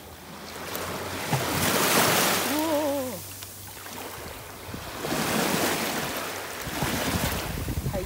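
Small waves washing up and draining back on a sandy beach, the wash swelling and fading twice. Wind buffets the microphone near the end.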